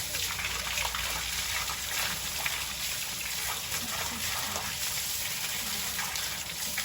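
Water gushing steadily from an outdoor shower and splashing down.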